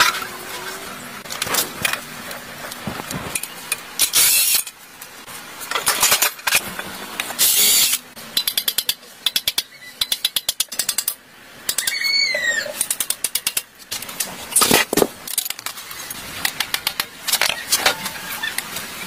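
Metal tools working on a rusty motorcycle: irregular clanks and knocks, short bursts of hiss, and a fast run of clicks a little past the middle. A short chirp sounds about twelve seconds in.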